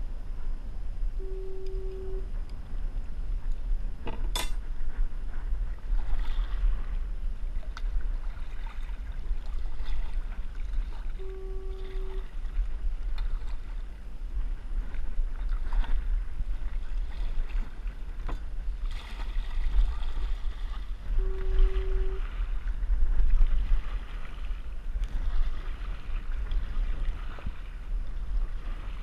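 Kayak paddle splashing in the water over a steady rumble of wind on the microphone. A short low tone sounds three times, about ten seconds apart, and there is a sharp click about four seconds in.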